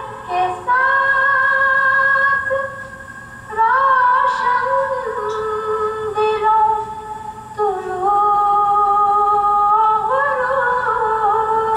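A woman singing unaccompanied, in long held notes that bend and slide between pitches, with short breaths between phrases, heard through a television's speaker.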